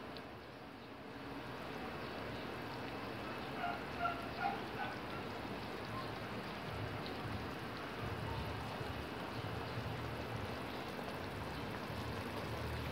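Pork sinigang broth boiling in a stainless steel pot: a steady bubbling hiss. A couple of short, faint sounds stand out about four seconds in.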